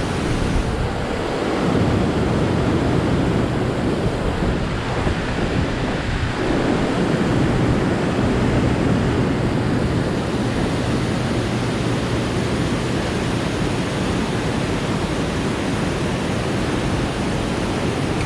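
Steady rushing noise of wind on the microphone over moving water, loud and unbroken.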